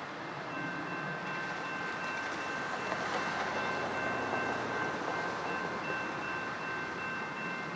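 Railroad grade-crossing warning bell ringing, switching on about half a second in with several steady high tones, over the faint rumble of a passenger train approaching in the distance.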